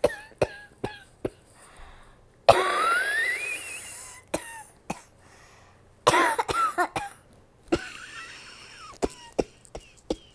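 A woman coughing in repeated fits from a cold and asthma: a few short sharp coughs, a long drawn breath with a rising wheeze about two and a half seconds in, a harder voiced coughing fit around six seconds in, and a string of small coughs near the end.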